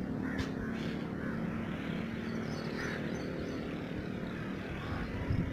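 A steady, low engine drone over an even hiss of outdoor noise.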